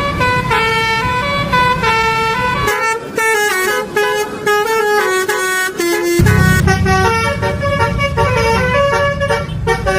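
Basuri telolet bus horn playing a quick melody of short, stepping notes, over a low rumble that drops out for about three and a half seconds partway through.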